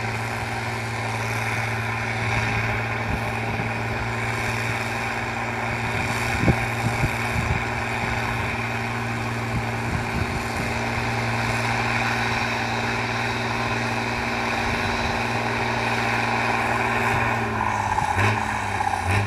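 Valtra BH 180 tractor's diesel engine running steadily at constant speed, rumbling nicely. Near the end its pitch dips briefly.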